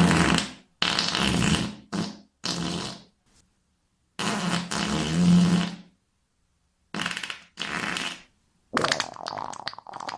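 A series of about eight fart sounds, each up to a second or two long with a low buzz, separated by short silences. The last one, near the end, is more broken up.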